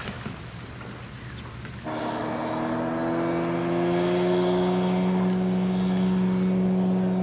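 Outboard motor driving an inflatable boat at speed: after a quieter stretch of wind and water noise, the engine note comes in suddenly about two seconds in and runs steadily, rising slightly in pitch as the boat speeds up.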